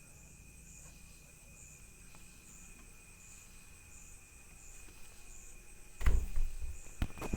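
Faint steady high-pitched whine with a soft chirp repeating about once a second. About six seconds in there is a loud thump, then a sharp click a second later.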